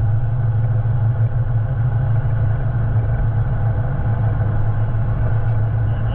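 Steady low drone of a car driving at cruising speed, engine and tyre noise heard from inside the cabin.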